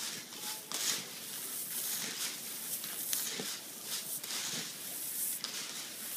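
Roasted coffee beans rustling and rattling as they are stirred, scooped and poured with wooden scoops in woven bamboo trays, in repeated irregular swishes.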